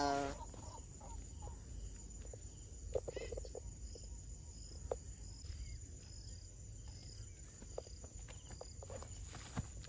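Faint riverbank ambience: short, high insect chirps repeating about twice a second through the middle, over a low steady rumble. A few soft knocks and rustles sound now and then.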